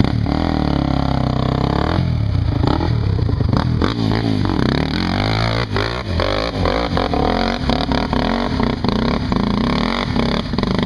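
Z440 sport quad's engine revving hard under load up a steep dirt hillclimb. Its pitch rises and falls again and again as the throttle is worked, with scattered short clatters.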